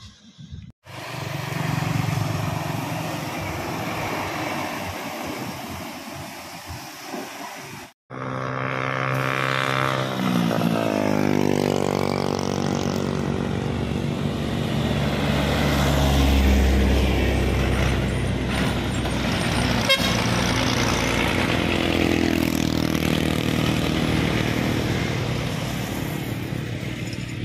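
Trucks and cars passing on a highway heard from the roadside: engines running and tyres on the road. About a third of the way in, an engine's note falls steadily in pitch as one goes by, and a deep rumble from a heavy vehicle is loudest near the middle. The sound breaks off abruptly twice.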